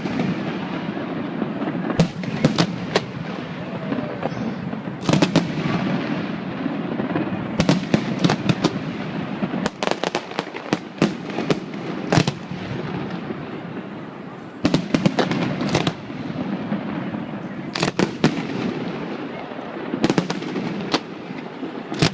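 Fireworks exploding in irregular clusters of sharp bangs, several in quick succession at a time, over a constant background din.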